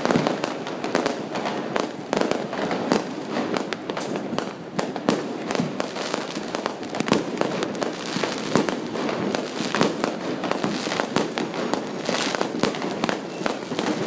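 New Year fireworks going off without a break: a dense, rapid run of cracks and bangs, many overlapping.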